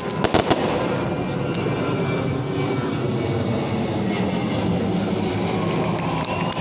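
A few aerial firework shells bursting in quick succession about half a second in, followed by a steady dull rumble of noise.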